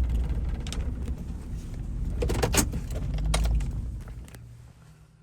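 Vehicle on the move, a low road rumble with a few rattling clicks in the middle; the rumble dies away near the end.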